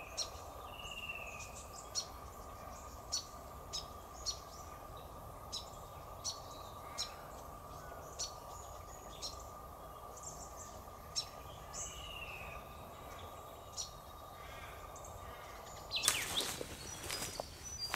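Birds calling in the bush: short sharp chirps every second or so and a few brief whistled notes, over a steady faint high hum. Near the end, a brief louder rustle.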